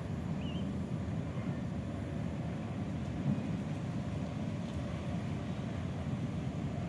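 Steady low outdoor rumble with a faint short bird chirp about half a second in.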